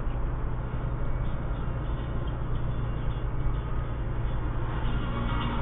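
Steady low rumble of a car's engine and tyres on the road, heard from inside the cabin while driving. Faint music creeps in near the end.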